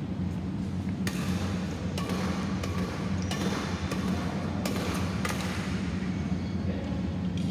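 Badminton rally: a shuttlecock struck back and forth with rackets, about six sharp knocks roughly a second apart, each ringing briefly in the hall, over a steady low hum.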